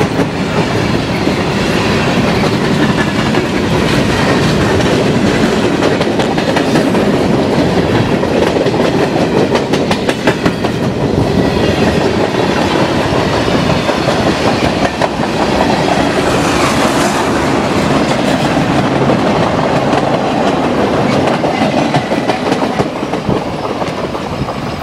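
A CN freight train's hopper and tank cars rolling past close by: steel wheels clattering on the rails, with a dense run of sharp clicks over a continuous rumble.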